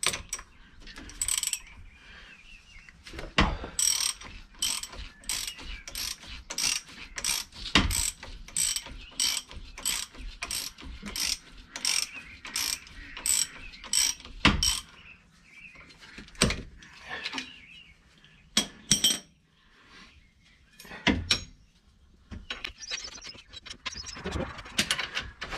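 Hand tools working the strut top-mount nut of a Citroen Ami's front McPherson strut. There is a run of sharp metallic clicks at an even pace of about two a second for some ten seconds, like a ratchet being worked, with a few heavier metal knocks mixed in and scattered clicks and clanks after it.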